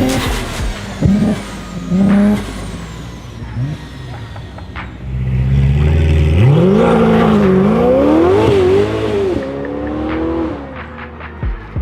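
Modified sports car engine revving and accelerating. There are short loud bursts in the first few seconds, then about six seconds in the engine note climbs, dips and climbs again before falling away a few seconds later.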